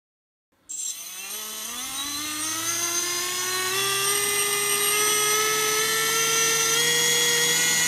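Xhover 2204 2300KV brushless motor spinning an HQ 5040 tri-blade propeller on a thrust stand, starting under a second in and throttled up slowly toward hover thrust. A whine that rises steadily in pitch, then holds steady near the end.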